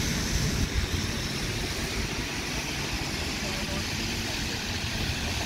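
London buses running and moving around a bus station: a steady low engine rumble mixed with traffic noise and an even hiss.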